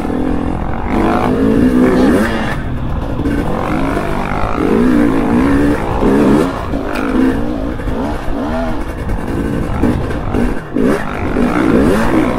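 Dirt bike engine running under load on a trail ride, the revs rising and falling over and over as the rider works the throttle and gears.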